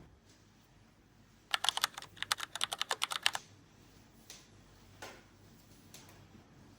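A quick run of keystrokes on a keyboard: about twenty fast clicks lasting roughly two seconds, starting about a second and a half in, then a few faint single taps.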